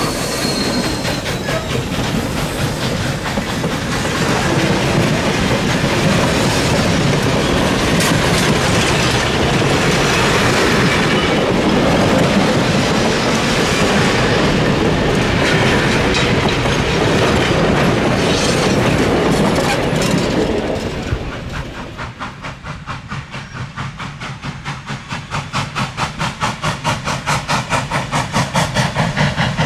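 Freight cars behind Norfolk & Western J-class 4-8-4 steam locomotive 611 rolling past close by, their wheels clattering over the rail joints. About two-thirds of the way through, this gives way to the locomotive's exhaust as a rapid, even beat that grows louder near the end.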